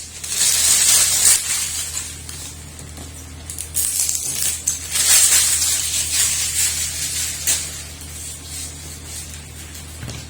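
Plastic packaging rustling and crinkling in two long spells, the first at the start and the second from a few seconds in, over a low steady hum.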